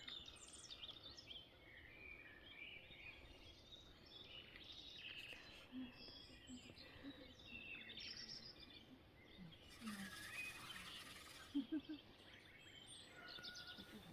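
Faint chorus of several small birds chirping and trilling over each other, with a brief rush of noise and then two or three short, louder low sounds near the end.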